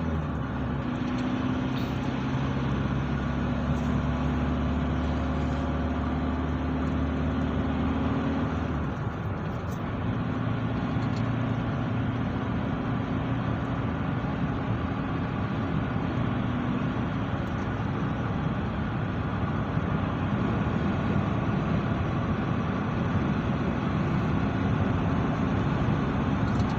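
A moving car's engine and road noise heard from inside the car: a steady drone. The engine note drops away about nine seconds in and settles at a new pitch a second later.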